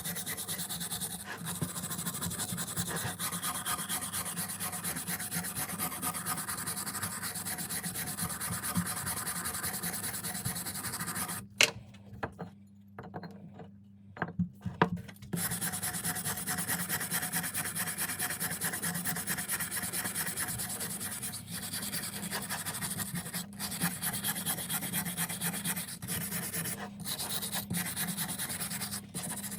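Continuous fast abrasive rubbing strokes from hand-tool work on the hatchet, like sanding or rasping. It stops for a few seconds near the middle, with a few sharp knocks, then resumes.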